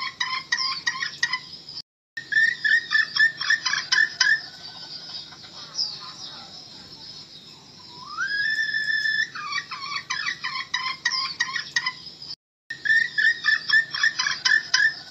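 Red junglefowl hen calling: a held whistled note that drops into a rapid run of clucks, repeated several times, with higher chirping behind it. This is the hen call played as a decoy to lure wild junglefowl into a trap. Two brief cut-outs break the sound, one about 2 seconds in and one near the end.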